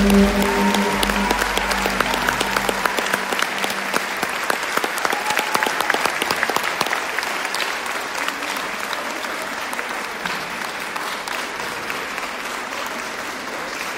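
Concert audience applauding after a song, the clapping slowly fading. The ensemble's last note dies away under it in the first few seconds.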